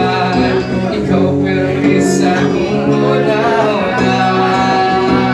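Live music: two electric guitars playing along with a man singing into a microphone.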